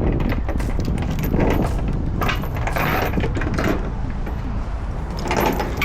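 Steady low rumble of a semi truck on the move, heard inside the cab, with loose things rattling and clinking over it.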